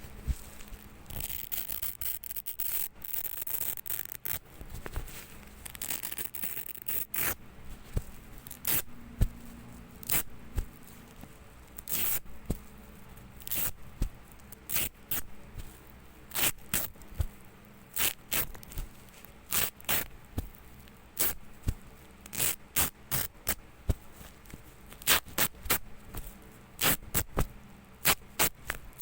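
Velcro (hook-and-loop) tape being pulled apart in ripping strokes: longer, denser rasping rips in the first several seconds, then a run of short, quick rips, about one or two a second.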